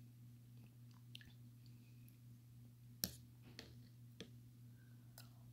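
Faint wet mouth sounds of eating yogurt: a few soft squishes and lip clicks, with one sharper smack about three seconds in.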